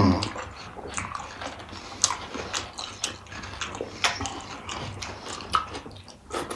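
Two people chewing mouthfuls of pani puri: irregular crunches and mouth clicks from the fried puri shells being eaten.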